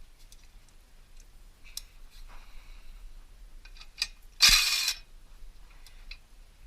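Metal tool clinks and clicks while the cylinder-head bolts of a 5 hp Briggs & Stratton engine are undone, with one short, loud burst of an impact gun about four and a half seconds in.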